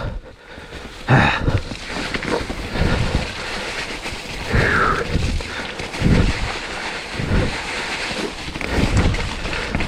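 Mountain bike on a snowy trail: a steady rush of tyre and wind noise with irregular knocks and rattles over bumps.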